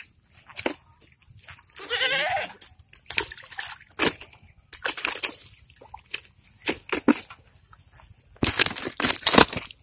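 Irregular short splashes and sloshes of water, loudest in a quick cluster near the end. About two seconds in there is a brief call with a wavering pitch.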